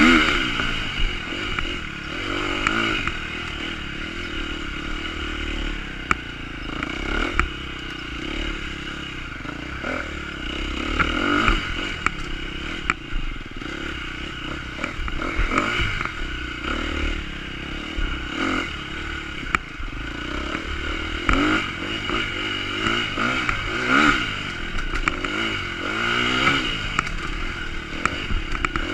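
Dirt bike engine revving up and falling back again and again as the throttle is worked through a slow, technical trail section, with clattering from the bike over the rough ground.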